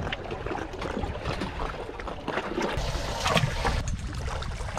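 Water lapping and trickling against the boat's hull, with wind rumbling on the microphone and small clicks and rustles from handling bait and tackle. The wind rumble grows stronger about halfway through.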